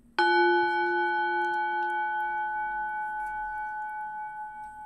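A bell is struck once, about a quarter second in, and rings on with a clear, slowly fading tone.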